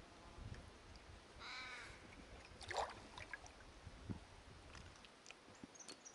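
A crow cawing: one drawn-out caw about one and a half seconds in, then a sharper rising call a second later. A few faint low knocks and scattered small chirps are also heard.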